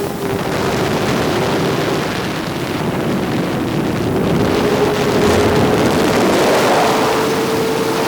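FPV drone's motors and propellers whirring in flight: one steady whining tone that dips and then climbs a little near the end, over a rush of wind noise.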